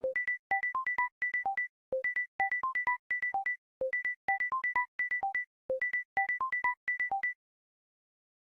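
Samsung Galaxy S10 ringtone: a short phrase of quick synthesized beeps, one low note followed by a run of higher notes. The phrase repeats four times, about every two seconds, then stops.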